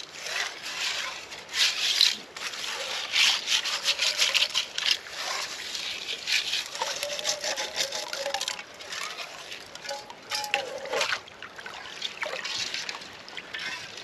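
A camp dish being scrubbed with sand and gravel in creek water: irregular gritty scraping strokes with splashing, going on without a break.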